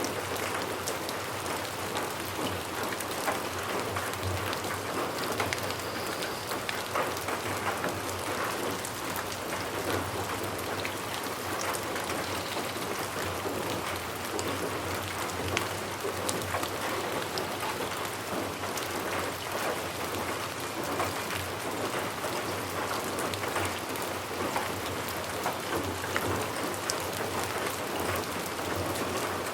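Steady rain falling on a surface, a continuous hiss dotted with individual drop ticks.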